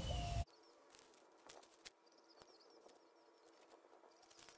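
A loud rush of noise that cuts off abruptly about half a second in, then a quiet outdoor background of faint, high chirping with scattered soft ticks and a low steady hum.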